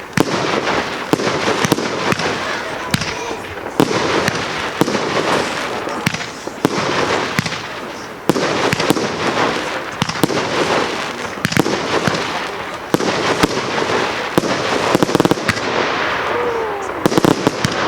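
Fireworks going off in quick succession: sharp bangs, one or two a second, over a continuous rushing, crackling din of bursts in the air.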